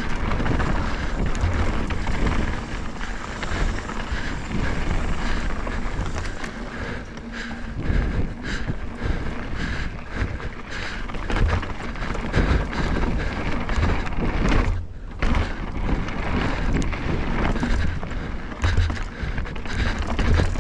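Full-suspension Canyon Neuron 29er mountain bike ridden down a rocky trail: knobby tyres rumbling over rock, with many knocks and clatters from the chain and frame over bumps, and wind on the microphone.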